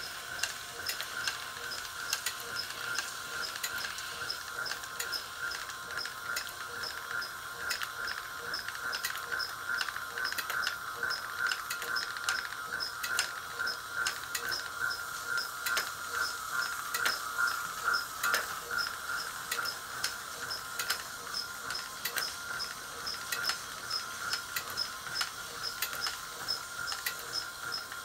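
Electric drive motor of a 103 series train destination roll sign running, winding the printed destination film from roller to roller. It makes a steady whine with a regular light ticking and occasional clicks.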